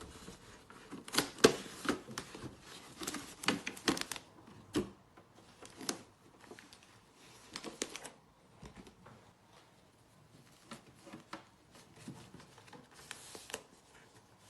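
Plastic puzzle sorting trays being handled and taken out of their protective packaging sleeve: rustling packaging with light clicks and clacks of the trays. The sounds come thickest in the first four seconds and grow sparser after that.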